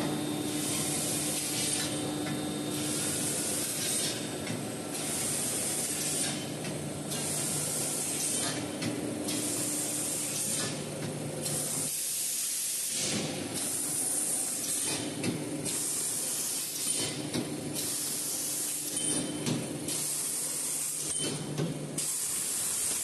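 CNC fiber-laser tube cutting machine at work: the cutting head's assist gas hisses in short repeated bursts, one every second or two, as it makes cut after cut in steel pipe, over a steady machine hum.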